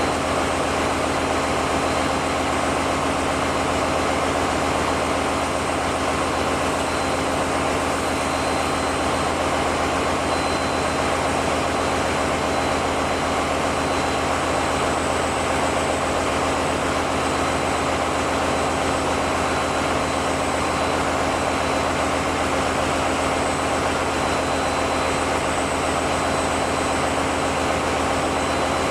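Steady engine-room noise of diesel generator engines running: an even, unbroken roar with a low hum and a thin high whine.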